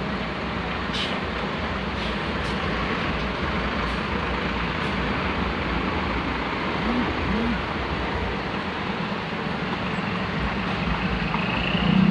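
Diesel engine of a large coach bus running steadily as the bus drives slowly away, a low drone over steady mechanical noise.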